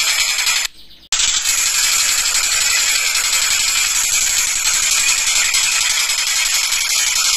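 Tengkek buto kingfisher calling in a rapid, harsh, rattling chatter that goes on without pause, broken only by a short dropout just under a second in.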